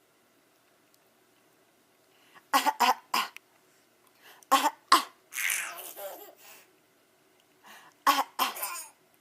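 Deliberate fake coughs in short groups: three quick coughs about two and a half seconds in, two more a little later, and two near the end. A longer breathy laugh comes between them.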